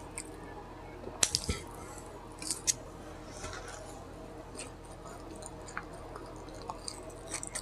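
Close-up eating sounds: a person chewing fast food, with a few sharp mouth clicks and smacks about a second in and again around two and a half seconds, then fainter ticks.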